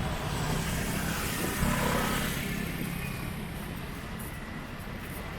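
Street traffic with a motor vehicle passing close by: its engine and road noise swell to a peak about two seconds in, then fade back into the steady traffic noise.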